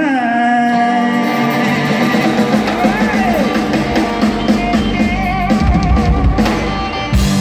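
Live country-rock band playing, with drum kit and guitars over held notes.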